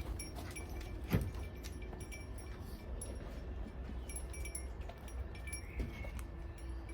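Light clinking and tapping of small hard objects, with short high ringing tones and one sharper knock about a second in, over a low steady rumble.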